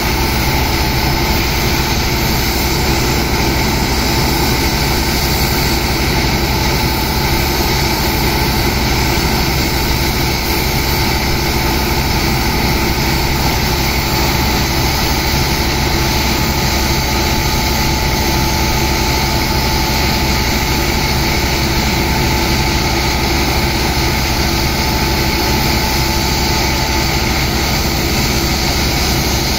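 Heavy engine running steadily, driving the pumps of a sand-pumping operation, with the hiss of high-pressure water jets from the hoses blasting the sand.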